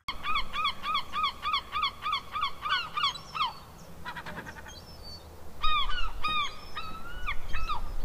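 A flock of gulls calling: a quick run of about a dozen sharp, yelping calls, about four a second, then after a short lull more calls, some of them longer and drawn out.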